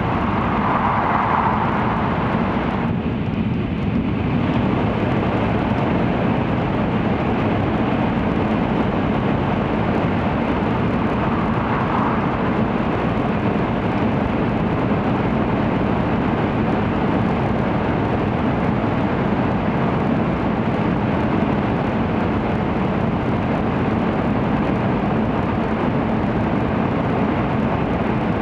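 Steady in-cabin running noise of an N700 series Shinkansen at high speed in a tunnel: a dense rush over a low hum. The higher part of the noise dips briefly about three seconds in.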